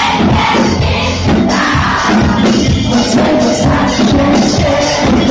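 Live pop band playing loudly through a club PA, with electric guitar, keyboards and drums, picked up from within the audience.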